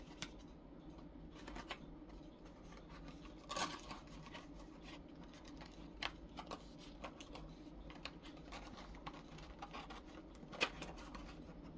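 Faint scattered clicks, taps and rustles of small cardboard boxes being folded by hand, over a low steady room hum.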